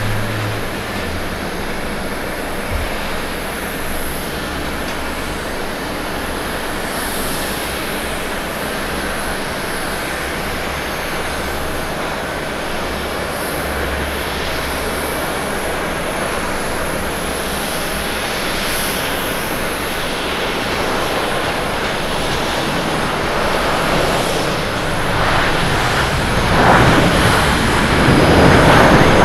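Jet engines of an Airbus A350-900 (Rolls-Royce Trent XWB turbofans) running steadily as the airliner comes in to land. The noise grows louder about 25 seconds in as the aircraft rolls down the runway after touchdown.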